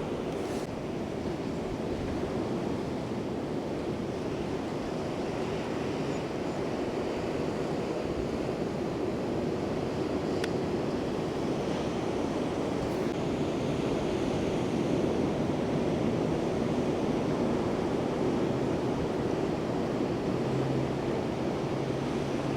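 Steady rush of ocean surf, a continuous wash of breaking waves.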